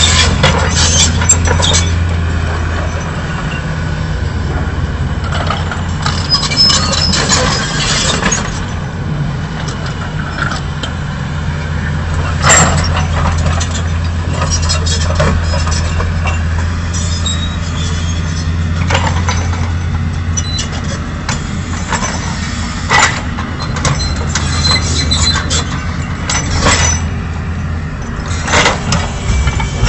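Excavator's heavy diesel engine running steadily during demolition, with sharp knocks and cracks every few seconds as its arm works on the concrete building.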